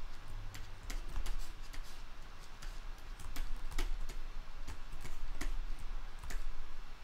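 Light, irregular clicks of a computer's controls at a desk, roughly one to two a second, over a faint steady low hum.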